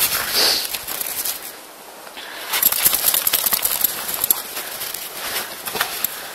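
Footsteps crunching in snow: a run of crisp crackling steps that grows louder and denser from about two and a half seconds in.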